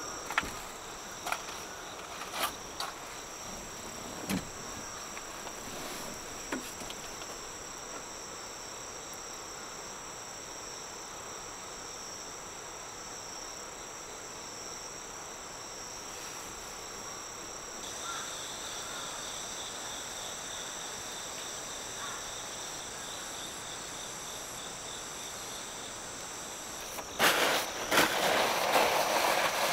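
Insects singing steadily in high, thin drones, with a second insect's song joining about two-thirds of the way through. A few light knocks come in the first few seconds, and near the end there is loud crinkly rustling of a white bag being handled.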